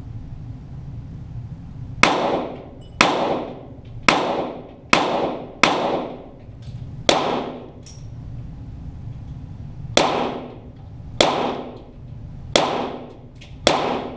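.22 Walther GSP target pistols firing ten single shots, each a sharp crack followed by a short decaying echo. Roughly one shot a second, with a pause of about three seconds midway.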